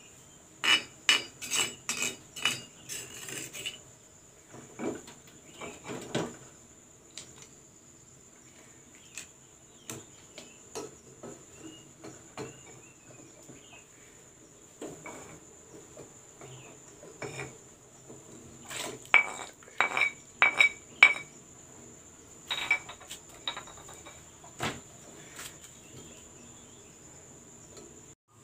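A metal spoon and a stone mortar clinking and scraping against an aluminium cooking pot as ground spice paste is scraped into it. The knocks come in bursts of quick strikes near the start and about two-thirds of the way through, with scattered single knocks between.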